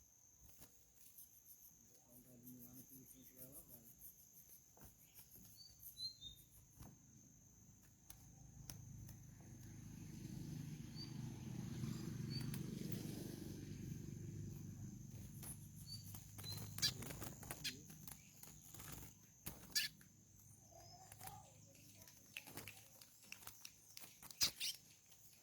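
Faint outdoor quiet with a few short, high bird chirps and scattered clicks. A low rumble swells and fades over about ten seconds in the middle.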